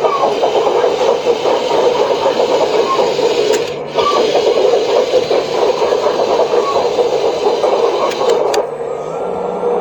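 Remote-controlled model construction machine running: its electric drive motors and gearing whir and grind steadily as it moves off, with a brief break about four seconds in.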